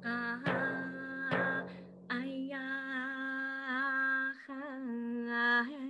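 A woman singing long held notes with a wavering vibrato, over three deep drum strikes in the first couple of seconds.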